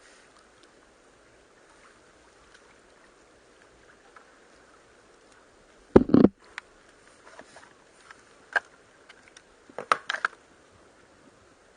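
Knocks on a wooden boat during a fish fight: one loud knock about six seconds in, a single sharp click a couple of seconds later, then a quick cluster of three or four knocks near the end, over a quiet background.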